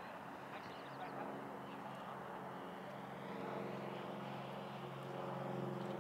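Four-rotor quad airplane's motors and propellers humming steadily in flight, with one even, pitched tone throughout; it grows louder about three and a half seconds in and again near the end.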